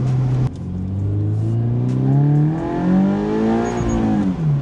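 Toyota GR86's flat-four engine through an HKS Hi-Power single-exit exhaust, accelerating. Its note changes suddenly about half a second in, then rises steadily in pitch for about three seconds and falls again near the end as the revs drop.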